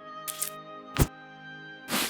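Light background music with held notes, over one sharp click about halfway through and brief scratchy rustles near the start and end.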